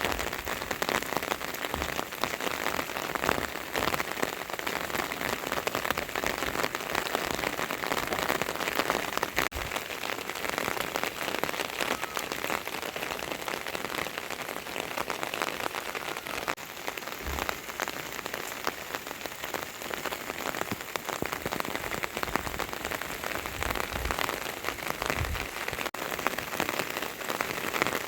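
Steady rainfall, a continuous hiss with many individual drops pattering and tapping on nearby surfaces.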